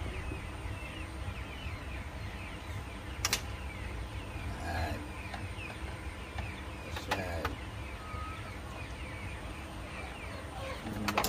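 Quiet outdoor ambience: a steady low rumble with many faint bird chirps, and a few sharp clicks and clinks of oyster shells, utensils and glassware being handled at the table, the loudest near the end.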